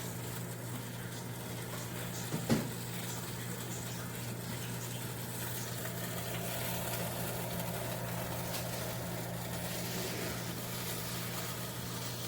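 Beelicious 32QT air fryer oven running, its fan giving a steady low hum over a hiss. A single short knock about two and a half seconds in.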